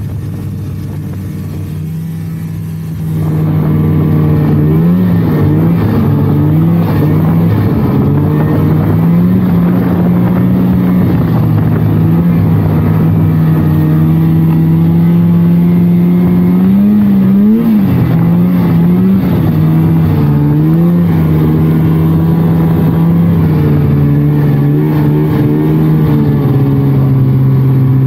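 1999 Polaris snowmobile's two-stroke engine running under way. It is quieter for the first three seconds, then the throttle opens and it runs louder at a steady pitch with small rises and dips.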